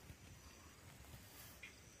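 Near silence: faint outdoor background, with one faint, brief high rustle a little over a second in.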